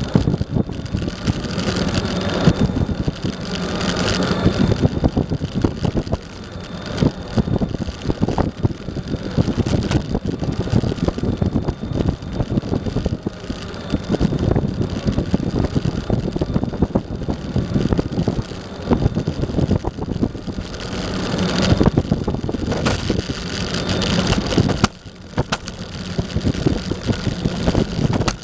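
Eglide electric skateboard rolling over pavement, heard from a camera mounted on the deck: a steady rumble and clatter of the wheels on asphalt, with the electric motor's whine swelling and fading and some wind on the microphone. The noise drops away briefly near the end.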